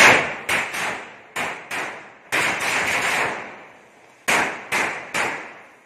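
Firecrackers bursting on the ground in a rapid, irregular string of about eight sharp bangs, with about a second of fizzing crackle in the middle.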